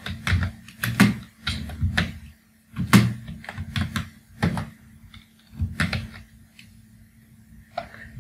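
Typing on a computer keyboard: irregular key clacks, dense for the first five seconds, then a few scattered strokes, over a faint steady low hum.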